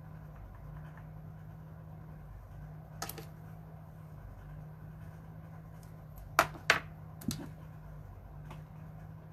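Sharp clicks and clacks of a Le Rêve flat iron being handled: a faint one about a third of the way in, then two loud ones close together a little past halfway and a smaller one just after, over a steady low hum.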